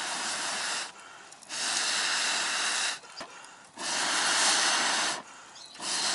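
Long, even puffs of breath blown into a small wood fire to fan the flames, each a rushing hiss about a second and a half long, repeated about every two seconds.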